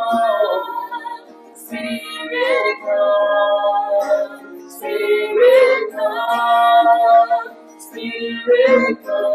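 Worship music: a voice singing slow phrases with long held notes over a steady sustained accompaniment.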